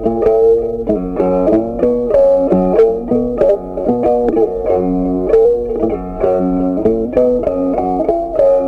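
Background music: a plucked guitar melody, a steady run of short picked notes.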